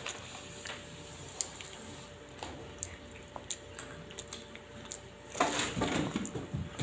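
Close-up eating sounds of someone snacking on grapes and peanuts near the phone's microphone: small wet clicks and chewing. About five and a half seconds in, a louder burst of rustling handling noise as the phone is moved.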